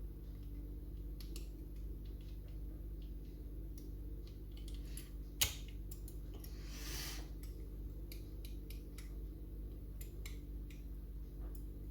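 Small metal clicks and scrapes of a pick wire and tension tool working the levers inside an ERA Viscount lever mortice lock, with one sharper click about five seconds in and a brief scrape just after. A steady low hum runs underneath.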